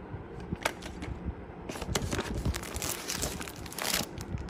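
Packaging being handled: a sharp tick just under a second in, then about two seconds of crinkling and rustling of wrapping.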